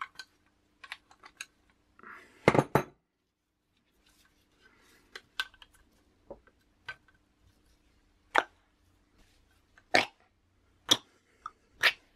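Small metal clicks and clinks of a 24 mm socket being fitted and turned by hand on the compression adjuster cap of a mountain bike suspension fork, with a louder clatter about two and a half seconds in, then sharp single clicks roughly once a second in the second half.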